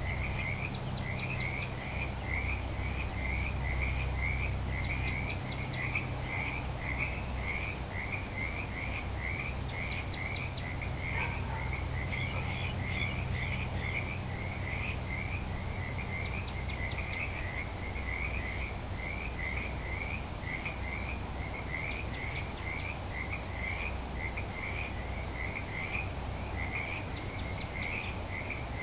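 Frogs calling in a continuous chorus: short croaking calls repeated about two or three times a second, over a low steady hum.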